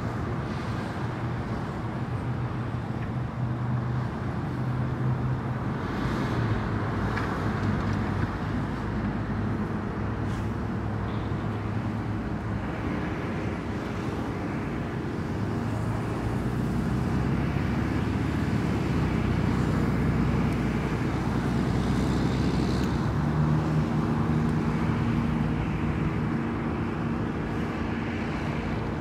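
Steady highway traffic: cars and trucks passing, with a low engine hum that swells and fades as vehicles go by, louder for a stretch in the second half.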